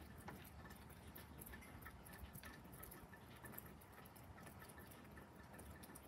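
Near silence, with faint, irregular ticks and clicks scattered through it.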